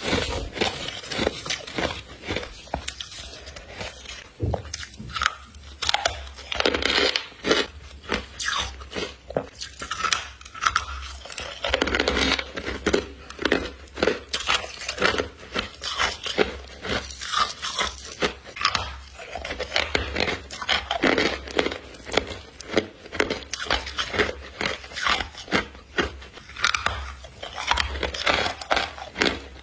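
Deep-freezer ice crystals being bitten and chewed close to the microphone: a continuous run of sharp crunches and crackles.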